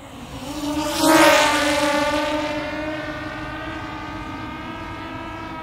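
Propeller-driven aircraft flying past: a humming tone with a whoosh swells to its loudest about a second in, then fades slowly as its pitch sinks slightly.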